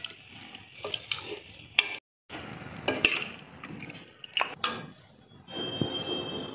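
A metal ladle stirring and scooping thick mutton curry in a metal pressure cooker, clinking and knocking against the pot's side a few times, with wet stirring sounds in between.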